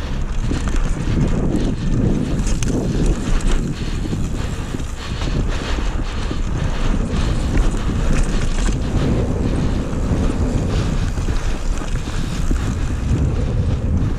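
Strong wind buffeting the camera's microphone: a loud, steady rushing noise, heaviest in the low range, with no let-up.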